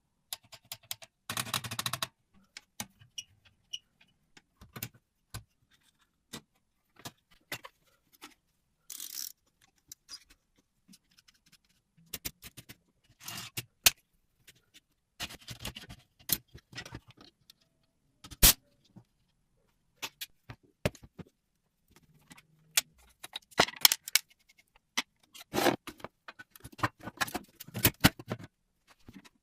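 Hand work on an old mechanical typewriter's metal parts: scattered sharp clicks and clinks with a few short scrapes, coming in irregular clusters separated by pauses.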